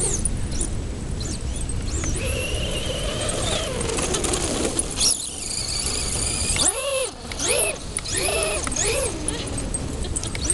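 Brushless electric motor of a Traxxas Slash 2WD RC truck (Castle 3600kv) whining, its pitch rising and falling in short sweeps as the throttle is worked, over a constant low rushing noise.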